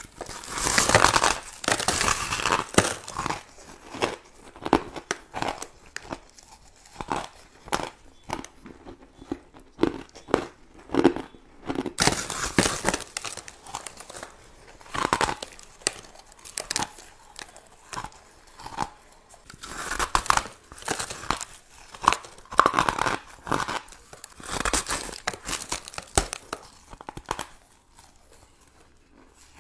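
A slab of crumbly powdery ice being bitten and chewed: dense runs of sharp crackling crunches in several bursts, the loudest about a second in, tailing off near the end.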